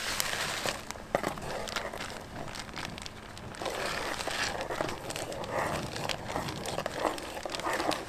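A bag crinkling and rustling with small crackles as dry oatmeal mix is tipped and shaken out of it into a pot of boiling water.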